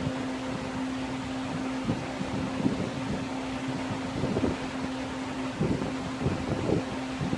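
Heat gun running with a steady fan hum, drying liquid vinyl on a seat-cover repair, with a few light knocks from handling the work.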